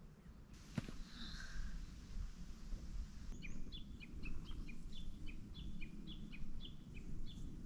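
A small bird calling a quick run of short, falling chirps, about three a second, over a low outdoor rumble. A single softer call comes about a second in, and the chirping starts about three seconds in.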